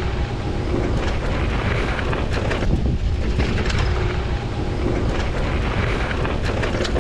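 Wind rushing over the action camera's microphone and the Commencal Supreme DH downhill bike's knobby tyres rumbling over the dirt trail, with frequent small clicks and rattles from the bike.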